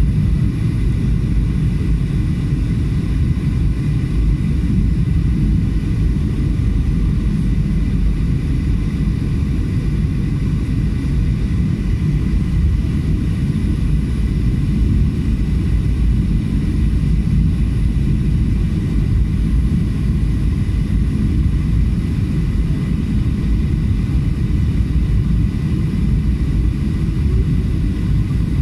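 Steady jet airliner cabin noise heard from a seat over the wing: the deep rumble of a Boeing 737's CFM56 turbofan and rushing airflow, with a faint steady high whine, during the descent on final approach.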